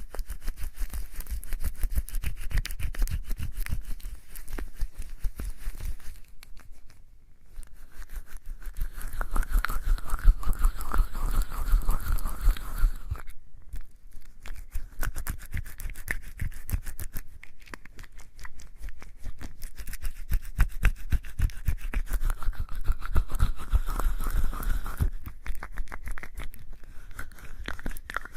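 Soapy wet hands rubbing and lathering together with a rapid, squelching scrub, pausing briefly twice.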